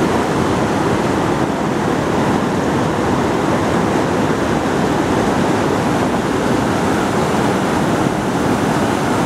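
Fast mountain river rushing over stones and shallow rapids: a steady, loud rush of churning white water close by.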